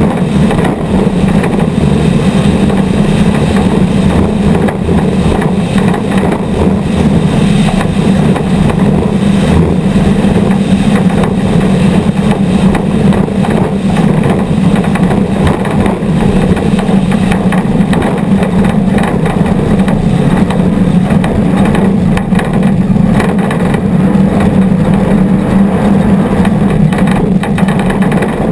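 Off-road race vehicle's engine running hard and steadily at speed, loud and unbroken, heard from a camera mounted on the vehicle.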